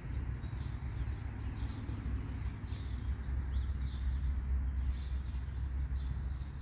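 Outdoor ambience of birds chirping in short, faint calls over a steady low rumble.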